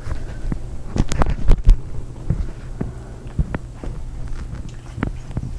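Irregular taps, knocks and thumps of pets scuffling and moving about during rough play, loudest around a second to a second and a half in, over a steady low hum.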